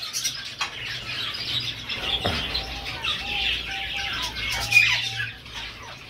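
A flock of budgerigars and zebra finches chirping and chattering together, many small high calls overlapping.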